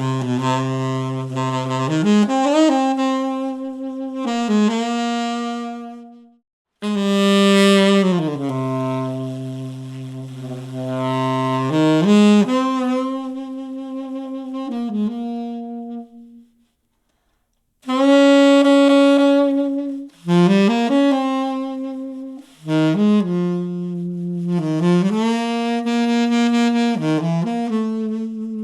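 Solo saxophone melody played back through a compact Genelec studio monitor loudspeaker and picked up by a microphone. It comes in phrases with gliding notes and brief pauses, the longest a little past halfway.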